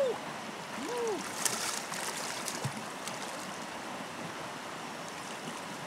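Steady rush of flowing river water, with hands sloshing and splashing in a shallow muddy pool about one and a half seconds in. Two brief swooping tones come in the first second.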